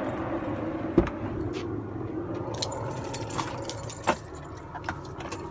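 A pickup truck's steady running rumble, which eases off after about four seconds, with a few sharp clicks and a jingle of keys.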